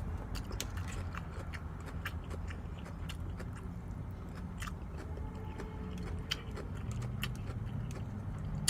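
Close-up chewing and lip smacking while eating, with many short wet clicks scattered throughout, over a steady low hum.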